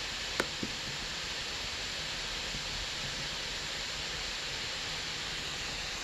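Microsoft Surface Book 2's GPU cooling fan running steadily under a gaming load, a constant airy hiss. Two short clicks sound about half a second in, the first the louder.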